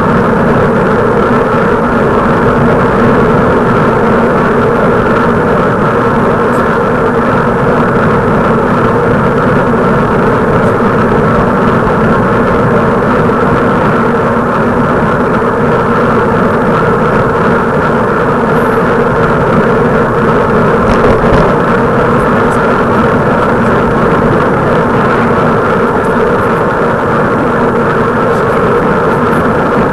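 Steady, loud wind and road rumble from riding a bicycle, with no change in level.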